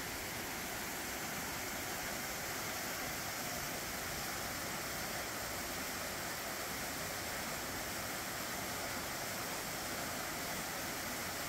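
Waterfall rushing: an even, unbroken noise of falling water that holds at one level.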